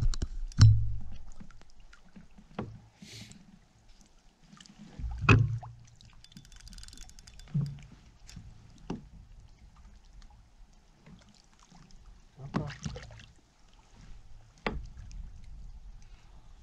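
Several knocks and thumps against a kayak's hull and gear, spaced a few seconds apart, the loudest just after the start and about five seconds in, while a northern pike is played beside the boat.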